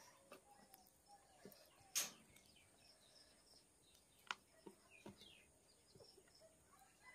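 Quiet hand-eating sounds: sharp wet mouth smacks and clicks, the loudest about two seconds in and another just past four seconds, with fingers mixing rice and chicken curry on a steel plate.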